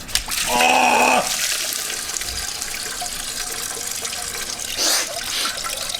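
Dark fluid pouring steadily out of the car's engine as it is drained, splashing as it runs. A short, loud pitched sound comes about half a second in.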